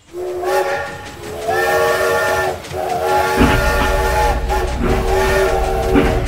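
Toy steam locomotive's whistle sound: a chord of several steady tones blown four times, the later blasts longer. A low rumble of the running train joins about halfway through.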